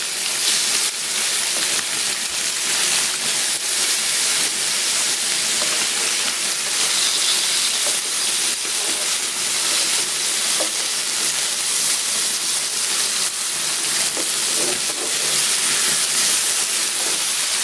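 Masala-marinated red snapper pieces sizzling in hot oil in a nonstick pan, a steady hiss, while the pieces are turned over.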